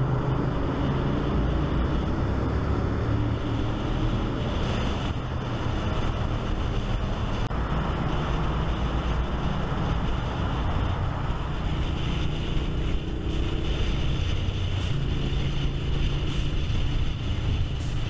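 Honda VTR1000's V-twin engine running at road speed through a loud exhaust, with steady wind noise on the on-board microphone.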